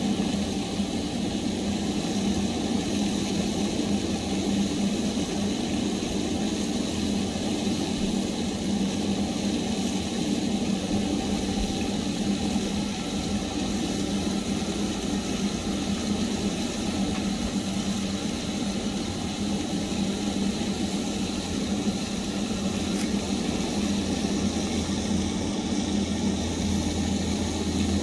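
A steady low mechanical hum of a machine running, with a deeper rumble growing stronger near the end.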